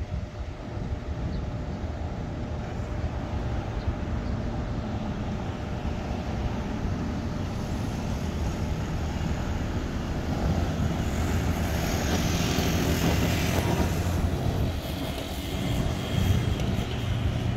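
An airplane passing overhead: a rushing engine noise that swells about halfway through and fades again near the end, over a steady low rumble.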